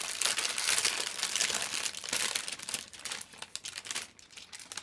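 Thin plastic bag of model-kit parts crinkling as it is handled, a dense crackling that thins out and quietens about three seconds in.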